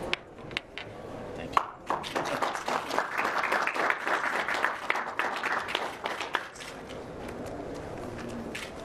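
Applause from a small group, starting about a second and a half in and dying away after about six seconds. A few sharp clicks come just before it.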